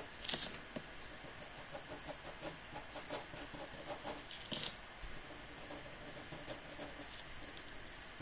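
Ink pen scratching on drawing paper in many quick short strokes, with two longer, louder strokes: one just after the start and one about four and a half seconds in.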